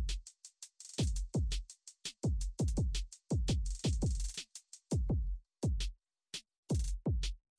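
Background electronic music with a drum-machine beat: repeated punchy kick drums and crisp hi-hat ticks, the beat thinning out briefly about six seconds in.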